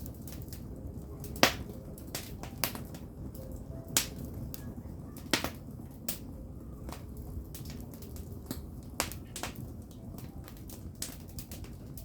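Firewood burning: irregular sharp crackles and pops, the loudest about a second and a half in, over a steady low rumble of the fire.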